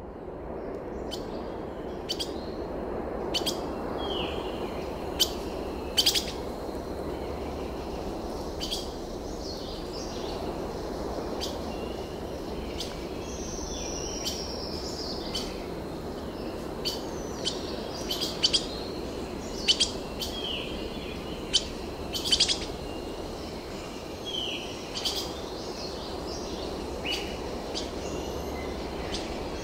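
Several birds chirping and whistling, with short sharp calls and a few falling whistles scattered throughout. Under them runs a steady background hiss of outdoor ambience that fades in over the first few seconds.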